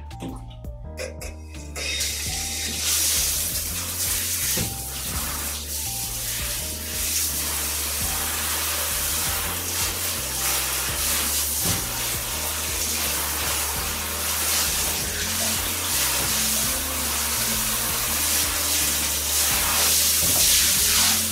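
Water spraying from a handheld shower head into a bathtub, starting about two seconds in after a few clinks, and running steadily. Background music with a steady bass line plays underneath.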